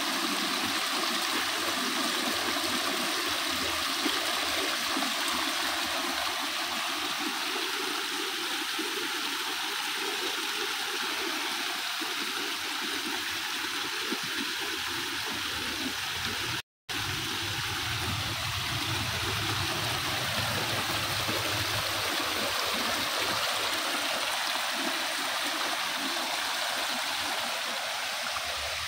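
A small stream running and splashing down low cascades over mossy rocks, a steady rushing of water. The sound cuts out for a split second just past the middle.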